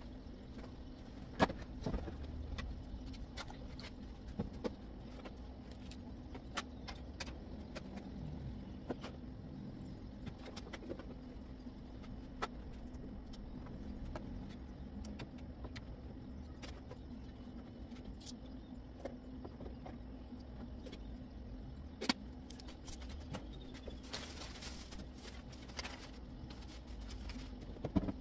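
Household objects being handled and put away on closet shelves: scattered clicks, taps and knocks as things are picked up and set down, with a stretch of rustling near the end, over a steady low hum.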